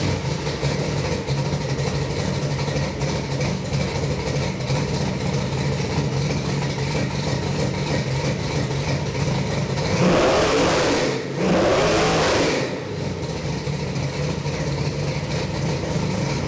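Carbureted Ford 418 Windsor stroker V8 running on a test stand, idling steadily through its headers and small mufflers. About ten seconds in, the throttle is blipped twice in quick succession, each rev a brief surge that drops straight back to idle.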